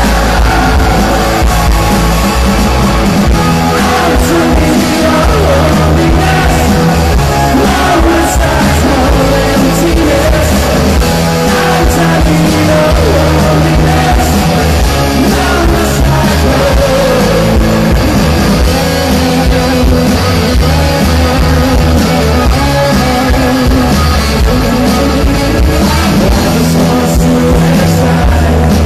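Rock band playing live at full volume, with electric guitars, bass, drums and singing, recorded loud from within the crowd.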